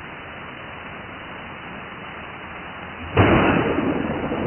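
Steady rain hiss, then about three seconds in a sudden loud thunderclap that rumbles on and slowly fades.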